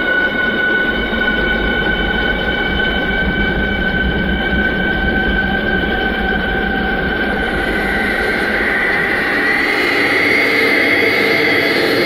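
Electroacoustic drone: several high tones held steadily over a noisy low rumble. About eight seconds in, the texture brightens and the upper tones shift.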